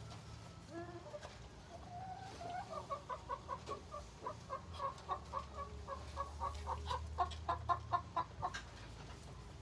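Chicken clucking: a long run of quick repeated clucks, several a second, that grows louder and stops about a second before the end.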